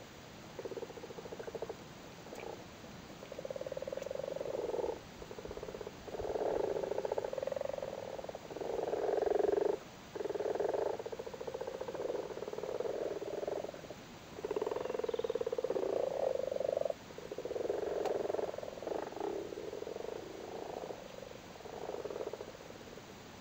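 Several male common frogs calling in chorus at spawning time: low, purring croaks of a second or two each, overlapping almost without a break.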